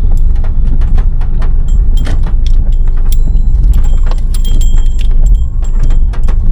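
Car moving slowly in the rain, heard from inside: a heavy, steady low rumble with many scattered sharp ticks of rain hitting the car.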